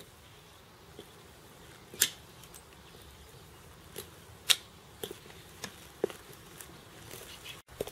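Sharp taps of high-heeled leather boots and a walking stick on stone and gravel, two loud ones about two seconds in and near the middle, then lighter taps about twice a second at walking pace.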